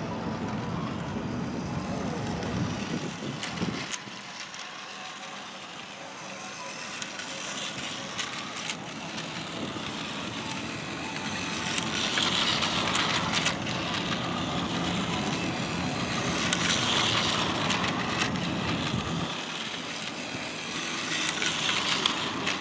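Battery-powered Plarail toy train whirring along plastic track, its motor and wheels swelling louder each time it passes close, about every four to five seconds in the second half, over steady outdoor background noise.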